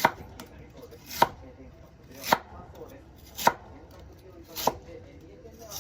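Kitchen knife cutting food down onto a cutting board in slow, even strokes, about one cut a second, six in all.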